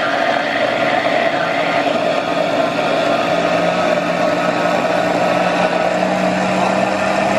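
Electric kitchen blender running steadily, whipping milk and oil into mayonnaise. Its hum steps up slightly in pitch twice as the emulsion thickens and the vortex closes, the sign that the mayonnaise has reached the point.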